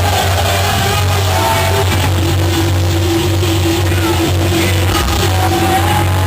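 Rock band playing live at full volume: electric guitar holding long notes and sliding in pitch over a heavy, steady bass.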